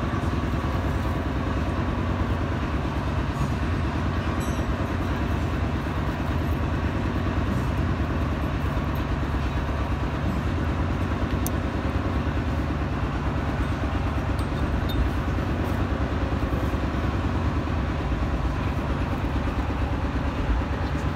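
Steady low rumble of an engine or machinery running, even and unbroken, with a couple of light clicks.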